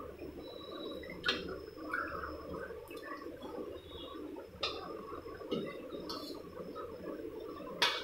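Metal spoon scraping and clinking against a stainless steel pan while thick kulfi mixture is spooned out of it, with three sharp clinks: about a second in, near the middle, and near the end. A steady low hum runs underneath.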